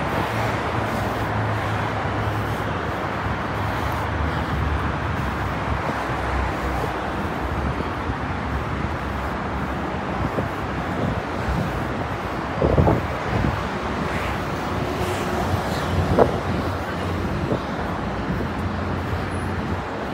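Road traffic noise beside a city street: a steady rush of passing cars, with two brief thumps in the second half.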